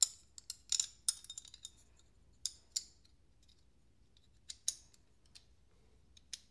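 Small sharp metallic clicks and scrapes from a Hinderer Eklipse folding knife being worked in the hand as its blade is swung closed into the handle. A quick flurry comes in the first second and a half, then single clicks every second or so.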